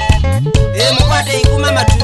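African band music: plucked guitar lines over a bass line and a steady beat.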